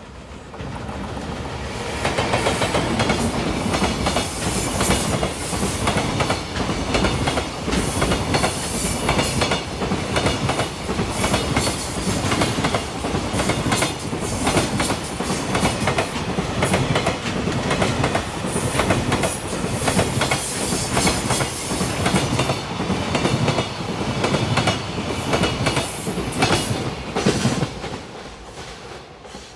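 A freight train hauled by a JR Freight EF210 'Momotaro' electric locomotive passing close by at speed. Its wheels clatter rhythmically over the rail joints. The sound swells to full loudness about two seconds in and falls away shortly before the end.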